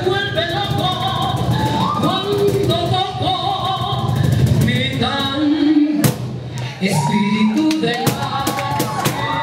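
A woman singing a melody, amplified, with a cajón's dry hand strikes keeping time behind her; her voice drops out briefly past the middle and then resumes.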